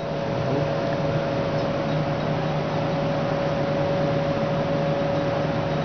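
Steady machine hum in a lab, with one constant mid-pitched whine over a low drone.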